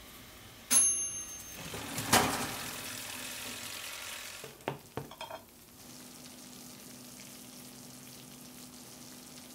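A bright metallic ding, then a clank and the hiss of a hot cast-iron skillet of cheese-topped fries sizzling as it comes out of a toaster oven, followed by a few light metal clinks. A faint steady hum fills the rest.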